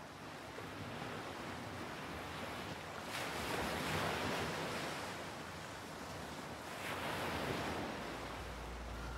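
Ocean waves washing in, surging twice, the first about three seconds in and the second near the end.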